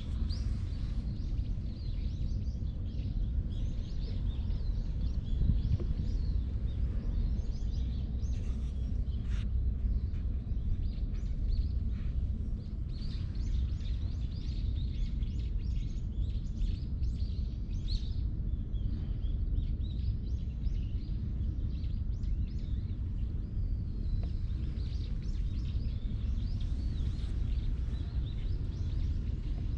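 Steady low outdoor rumble with many short, high bird chirps scattered throughout.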